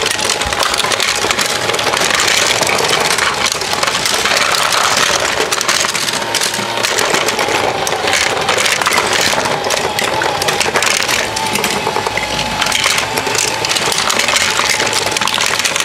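Continuous dense clattering of die-cast Tomica toy cars knocking and jostling against each other and the plastic ramp as the playset's climbing ramp carries them up in a pile-up. A faint steady whine runs underneath from about six seconds in.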